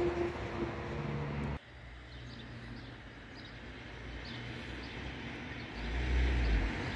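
Outdoor countryside ambience: a steady low rumble and noise that cuts abruptly to quieter background about one and a half seconds in. Faint bird chirps follow, and a stronger low rumble comes near the end.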